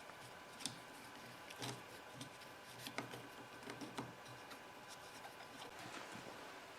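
Faint, scattered small clicks and scrapes of a hand tool on a small-engine carburetor as a jammed main jet is worked loose.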